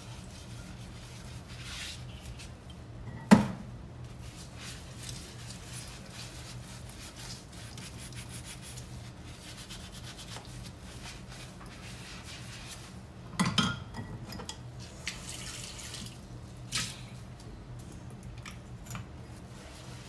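Ceramic dishes being hand-washed in a sink: water dripping and hands rubbing the crockery. There is one sharp knock about three seconds in, and a short cluster of knocks a little past the middle as the cups and bowls touch each other or the sink.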